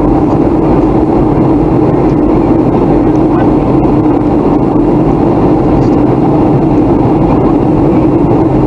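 Boeing 737-400 in flight, heard inside the cabin beside the wing: a steady drone of the CFM56-3 turbofan engines and rushing air, with a steady low hum running through it.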